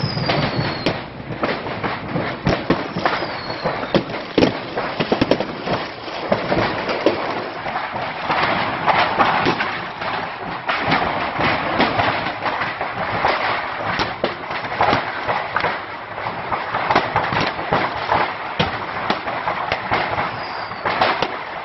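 Stored fireworks going off inside a burning building: a dense, irregular stream of bangs and crackles with a few short falling whistles, over a continuous crackling haze.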